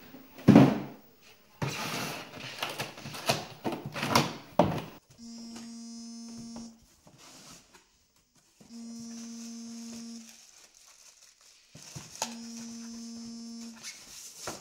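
Hoverboard box and foam packaging being handled, rustling and clattering, with a sharp thunk about half a second in. After about five seconds a steady humming tone sounds three times, each about a second and a half long, repeating every three and a half seconds.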